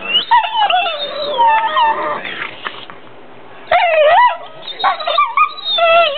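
Pit bulls making play noises instead of barking: long whines and howl-like yowls that slide up and down in pitch, with a quieter gap about halfway through. This is playful vocalizing during rough play, not distress.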